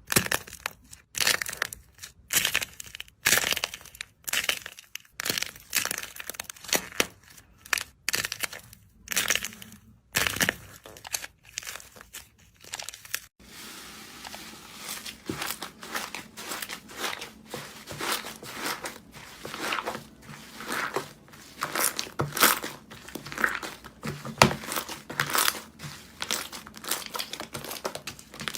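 Slime being squeezed and squished by hand, giving crinkly, crackling squishes. They come as separate bursts with short gaps for the first half, then run close together almost without a break.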